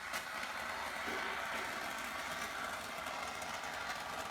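A can of expanding spray foam hissing steadily as foam is sprayed into a joint between rock panels to wedge and tighten them.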